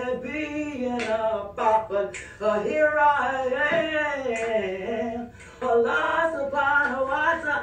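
A girl singing, her voice rising and falling in pitch, with a short break about five and a half seconds in.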